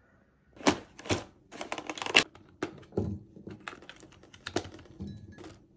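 Cherries being handled in a thin plastic clamshell punnet and moved into a ceramic mug: irregular crinkling and clicking of the plastic, with a few duller knocks, starting about half a second in.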